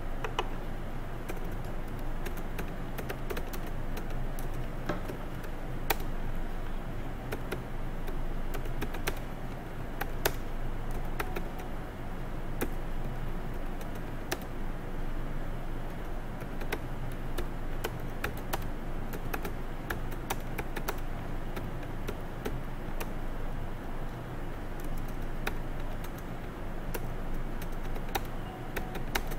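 Typing on a computer keyboard: irregular keystroke clicks in quick runs, over a steady low hum.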